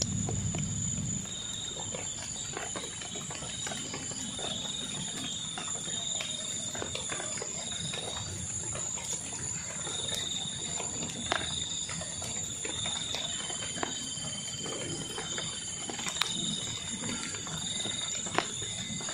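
Insects droning in tropical vegetation: a steady high whine with a lower chirring that swells and fades every second or two. A few sharp clicks stand out over a low background rumble.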